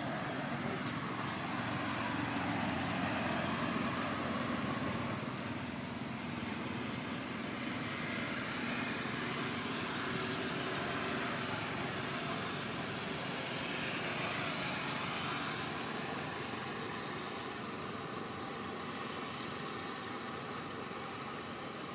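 Steady road traffic noise, swelling and fading as vehicles pass.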